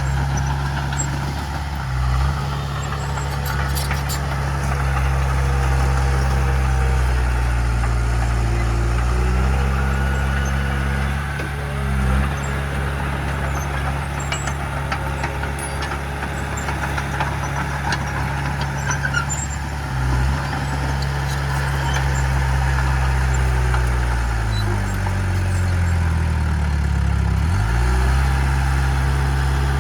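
Heavy earthmoving machine's diesel engine running steadily. The engine speed changes briefly a few times, and near the end the pitch sinks and then climbs back up as the revs come down and rise again.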